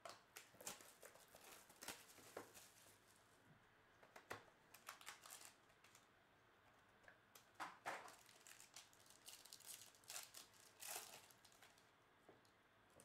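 Faint, scattered crinkling, rustling and small clicks of an Obsidian trading-card box being opened and its foil-wrapped pack torn open and the cards handled.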